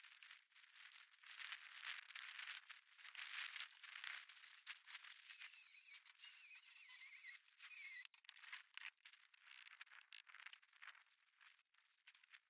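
Faint, irregular scraping and crunching of bricks and mortar being handled and worked by hand.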